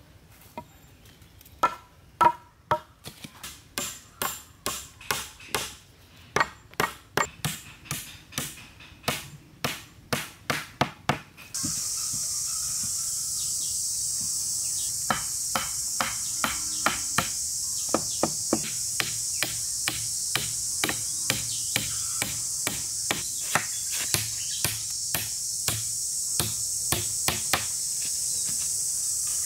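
Repeated blows of a tool on wood, evenly paced at about two strikes a second, in wood-chopping or hammering work on a log shelter. About a third of the way in, a steady high-pitched insect drone comes in under the continuing strikes.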